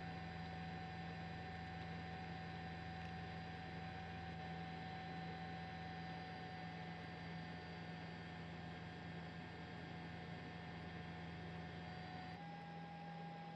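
Steady low hum and hiss with a few faint steady tones above it, which shift slightly in pitch about twelve seconds in.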